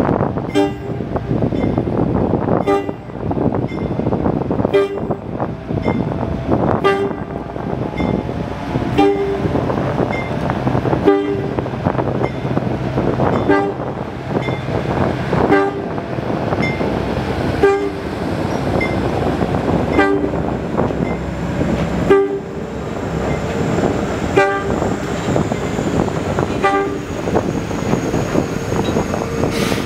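Diesel rail locomotive running, with a short two-note warning tone that repeats about every two seconds, each with a sharp click. A steady low engine hum runs under the first half and then fades.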